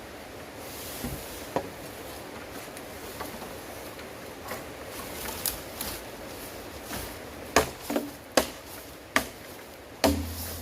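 A run of sharp, knocking impacts, like chopping or striking wood. About five loud knocks come close together in the last three seconds, and lighter clicks are scattered before them.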